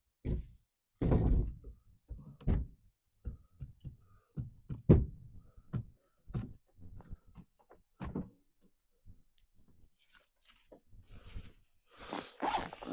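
Irregular knocks and thunks, a few of them loud, as a jack is let down under a pickup's rear axle and the axle and leaf spring drop and settle. A rustling scrape near the end.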